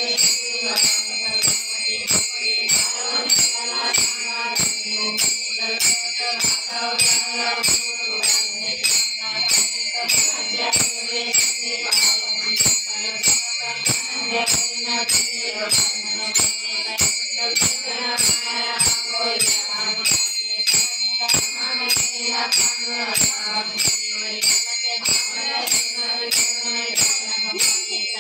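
Devotional bhajan music led by small brass hand cymbals (taal) clashing in a steady beat about twice a second, their ringing filling the upper range over a softer melody.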